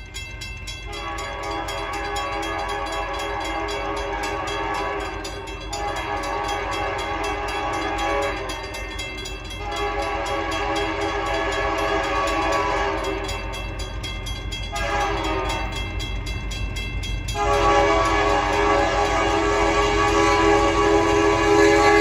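Union Pacific diesel locomotive's multi-chime air horn blowing the grade-crossing signal as the train approaches: several long blasts, a short one, then a final long blast that grows louder as the locomotive nears. The horn is eerie and echoing, over a steady low rumble of the approaching train.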